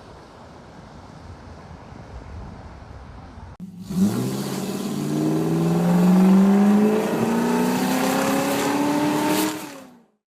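Wind rumbling on the microphone, then after a sudden cut a car engine accelerating hard, its pitch climbing steadily for several seconds before it fades out.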